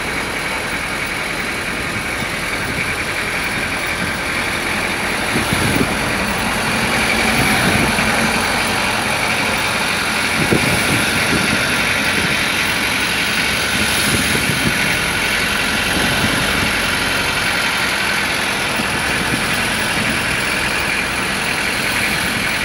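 Steady motor-vehicle engine and road noise, continuous throughout with no sharp events.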